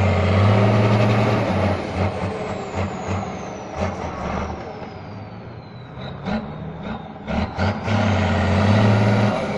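Six-wheeled trial truck's diesel engine revving hard twice, about eight seconds apart, while it climbs a dirt mound. Each burst puffs black smoke and is followed by a high whistle that slowly falls away.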